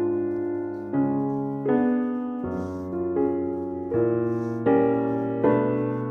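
Background piano music: soft chords struck about once a second, each ringing on and fading before the next.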